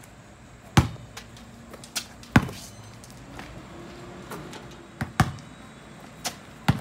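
Basketball thuds: the ball is dribbled on hard ground and shot at a backyard hoop. About seven separate sharp bangs, the loudest just under a second in, at about two and a half seconds, and a close pair around five seconds.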